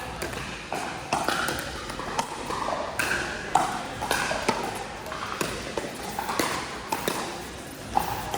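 Pickleball paddles hitting a hard plastic ball: a run of sharp pops and taps at irregular spacing, with faint chatter behind them.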